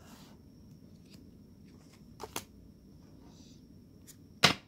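Tarot cards being handled off-camera over quiet room tone: a couple of light clicks about two seconds in and one sharper knock near the end.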